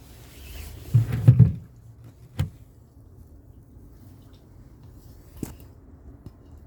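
Short rubbing, handling noise close to the microphone about a second in, then two light single knocks about three seconds apart.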